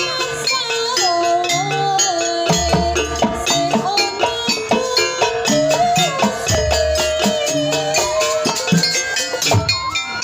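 Live traditional Indonesian gamelan-style ensemble music: a held, wavering melody line over dense struck metallic and drum notes, with a deep low gong-like note about every four seconds.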